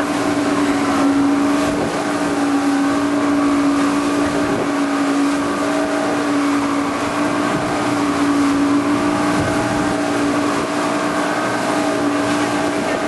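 A motor running at a steady speed: an unchanging drone at one pitch over a constant hiss.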